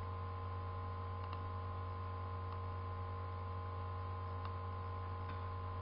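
Steady electrical mains hum picked up by the recording microphone, with evenly spaced whining overtones above it. About four faint clicks over it, mouse clicks as a shape is drawn.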